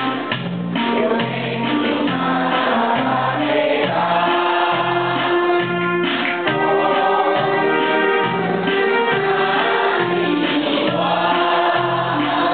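Electronic keyboard music played through a small amplifier: a regular bass pattern under sustained chords and a held, choir-like melody.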